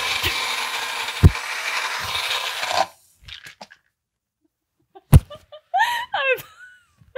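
Magic Bullet personal blender running, grinding dry puppy kibble into a fine powder, then cutting off about three seconds in. A single sharp knock follows, then a woman laughing.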